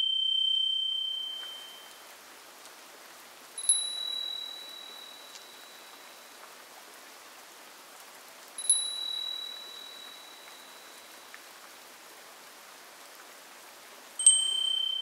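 Soft chime tones over a faint steady hiss: a chime rings out and fades at the start, then single chimes sound about four seconds in, about nine seconds in and near the end, each dying away over a second or two.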